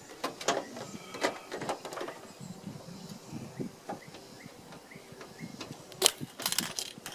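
Clicks and knocks of a plastic running-light housing being worked back into its mount on a pickup's front end. A loud sharp snap comes about six seconds in, followed by a quick rattle of clicks as it goes in.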